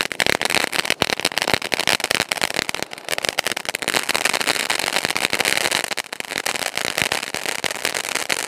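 Ground fountain firework (an 'ola') spraying sparks and stars with a dense, continuous crackle of many small rapid pops.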